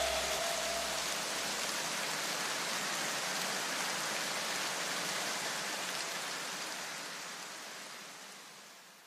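A steady, even hiss, like rain or static, that fades away to silence over the last few seconds.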